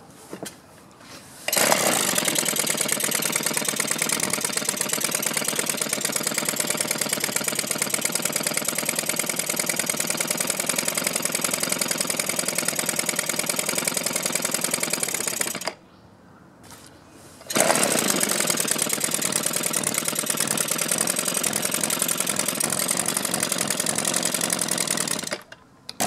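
Echo handheld leaf blower's two-stroke engine starting about a second and a half in and running at a steady speed for about fourteen seconds before cutting out abruptly. It starts again about two seconds later and runs for about eight seconds before cutting out again. The engine still runs poorly after a mixture-screw adjustment, which the owner puts down to old fuel gunk in the barrel carburetor.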